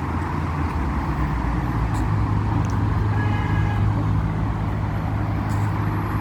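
Steady low rumble of road traffic, with an engine hum that firms up about a second in. A brief faint high-pitched squeak comes about three seconds in.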